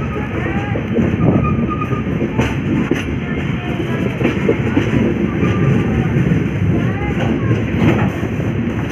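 Express train coach running along the track as it gathers speed, heard from the open doorway: a steady rumble of wheels on rails with a few sharp clicks from rail joints. Faint voices come through underneath.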